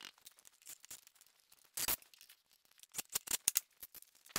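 Scattered metal clicks and clinks of lathe tooling and hand tools being handled, with a brief scraping rush about two seconds in and a quick run of clicks about three seconds in.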